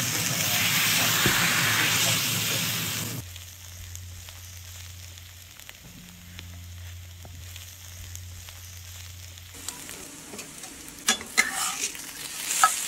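Stir-fry sizzling in a hot carbon steel fry pan for about three seconds, then dropping away to a quiet low steady hum. Near the end, sizzling and sharp clicks of a spatula against the pan as noodles are fried and turned.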